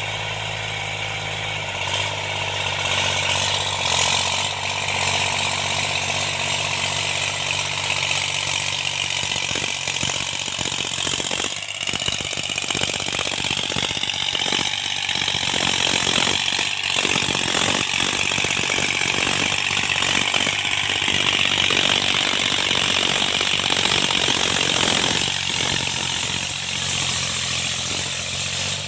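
Tractor engine running steadily while cultivating, with dense irregular mechanical clattering from about a third of the way in until near the end.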